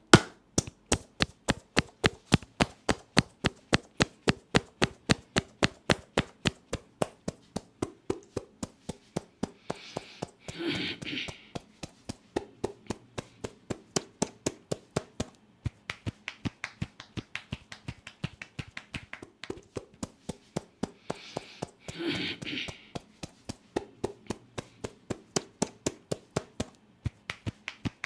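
Rhythmic tapping of hands on a head during an Indian head massage: sharp, even slaps about three a second. A brief hiss breaks in twice.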